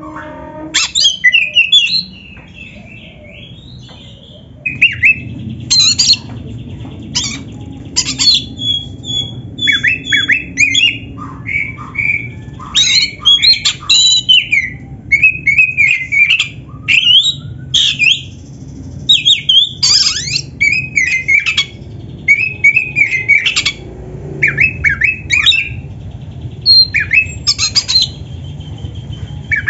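Oriental magpie-robin (kacer) singing vigorously: a fast run of short, varied whistles and chirps mixed with harsh notes, with a brief pause early on.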